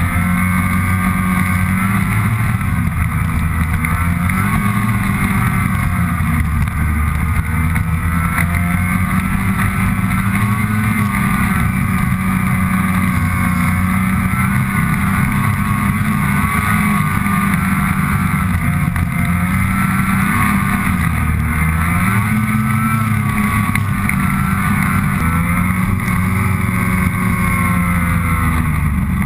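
Snowmobile engine running under way, heard up close from the sled itself, its pitch rising and falling again and again with the throttle.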